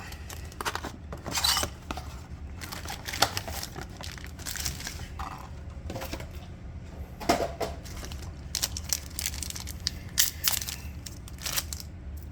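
Packing tape being torn and peeled off a cardboard trading-card box, with irregular tearing, scraping and rustling as the box is opened.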